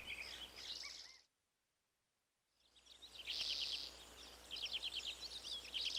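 Faint birdsong ambience of quick high chirps and trills. It drops to complete silence for about a second and a half, then the chirping starts again.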